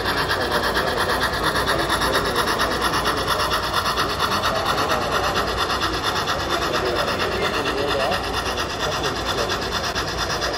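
Model steam locomotive and its train running along a layout, with a fast, steady rasping rhythm, over the murmur of a crowd.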